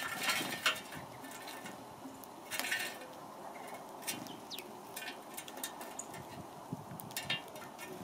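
House sparrows pecking seed and scrabbling on a metal hopper feeder: short clinks and rattles, bunched into three short flurries, with single ticks between them.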